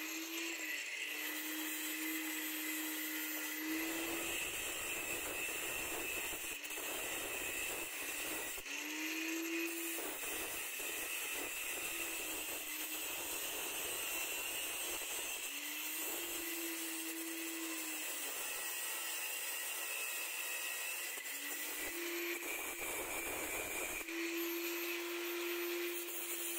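Angle grinder running with a cut-off disc, grinding into the threaded steel end of a spindle shaft: a steady motor hum under a harsh metal-grinding noise, in several stretches.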